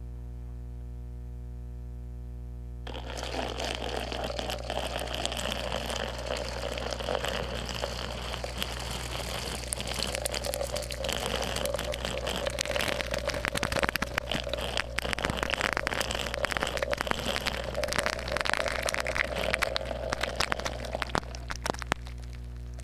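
Water poured over metal strainers and snow, picked up through contact microphones as dense crackling and ticking over a steady electrical hum. The crackling starts about three seconds in and stops shortly before the end.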